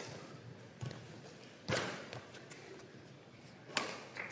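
Badminton rally: rackets striking a feathered shuttlecock back and forth. The hits are sharp and irregularly spaced, about a second or two apart, and the loudest comes a little before the end.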